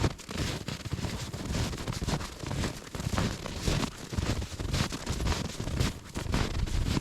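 Footsteps crunching through deep snow in a steady run of short, crackly steps.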